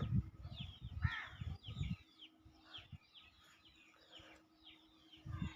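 Birds calling outdoors: a steady series of short, high, falling chirps, a few each second, with a harsher call about a second in. Low muffled thumps sound during the first two seconds.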